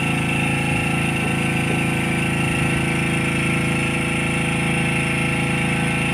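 Engine on a small fishing boat running steadily at constant speed, an even drone that does not change.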